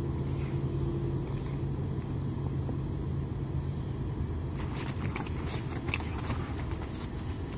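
Steady low hum of an inflatable bounce house's electric blower. From about four and a half seconds in come light taps and scuffs as a puppy walks on the vinyl floor.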